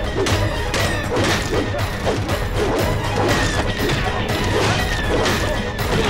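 Fight-scene sound effects: a fast run of punches, kicks and baton blows landing, one or two hits a second, over an action music score.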